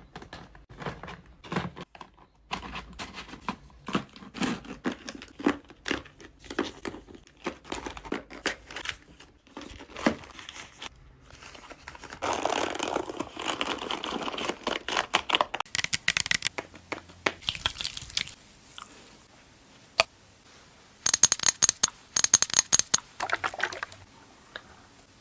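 Makeup products and their packaging being handled close to the microphone: a run of taps, clicks and crinkling, with a denser scratchy rustle about halfway through and a few quick bursts of sharp crackling near the end.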